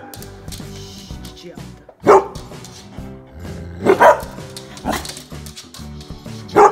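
Golden retriever barking, four sharp single barks spaced a second or two apart, over steady background music.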